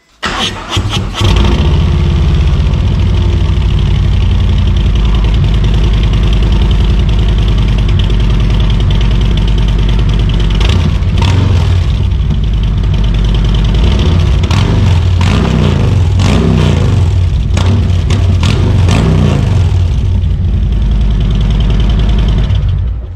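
Harley-Davidson Road Glide's Milwaukee-Eight 114 V-twin breathing through new Rinehart 4.5-inch slip-on mufflers. The starter cranks for about a second before the engine catches, then it idles loudly, with a run of quick throttle blips in the second half. The sound cuts off just before the end.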